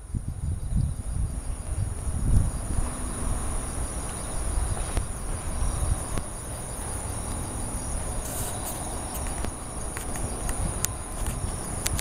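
Autumn crickets and other night insects chirping in a steady high-pitched trill, over a low, uneven rumble.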